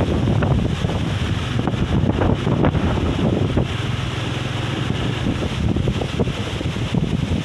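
Strong gusty wind buffeting the microphone: a continuous low rumble with irregular flutters.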